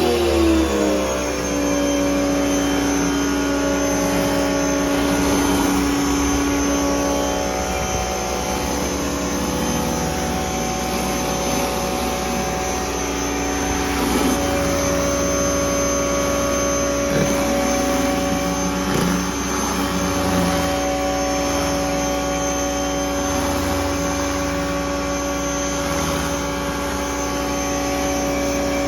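Pressure washer running steadily under load while driving a surface cleaner, its motor tone over a hiss of water spray. The motor's pitch drops about a second in, shifts slightly a couple of times, and rises again near the end.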